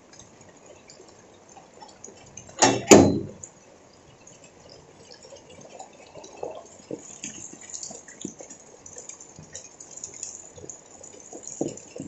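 Rainwater dripping and pattering in scattered drops on wet ground, the drops coming thicker from about six seconds in. About two and a half seconds in, two loud sudden knocks come in quick succession.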